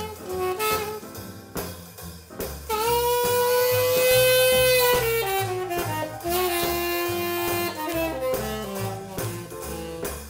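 Instrumental break in a jump-blues song: a lead line with a saxophone's tone holds one long high note for about two seconds, then bends down into a run of shorter notes, over a walking bass line.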